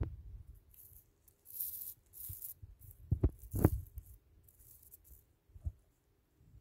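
Close handling noise: several short bursts of rustling and two sharp taps a little after three seconds in, from a gloved hand moving near the paper and the phone.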